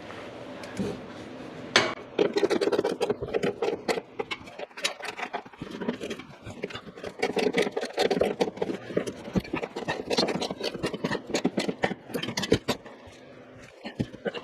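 Rapid, irregular metallic clicking and clanking from hand tools and exhaust parts being worked during an exhaust install. It starts suddenly about two seconds in and dies down near the end.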